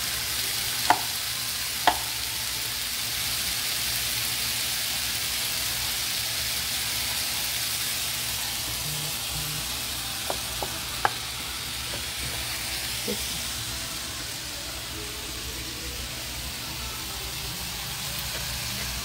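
Small-cut fajita meat with onions, cilantro and scallions frying in a pan on medium-high heat, a steady sizzle. A few sharp knife knocks on a cutting board come near the start and again around the middle as a tomato is cut.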